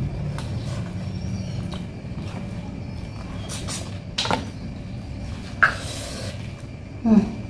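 Eating crab in Padang sauce with the fingers: scattered small clicks of crab shell being picked apart, with chewing and sucking mouth sounds. Three louder sudden sounds come about four, five and a half and seven seconds in, over a steady low hum.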